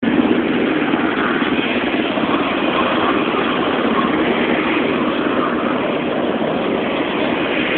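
Aircraft engine noise, a steady drone that stays at the same level throughout.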